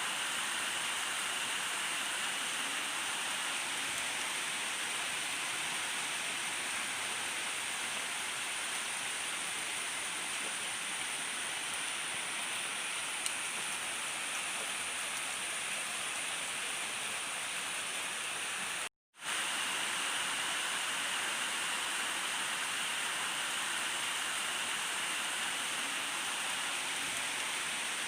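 Steady rain falling, an even hiss with no thunder. It cuts out for a split second about two-thirds of the way through, then carries on as before.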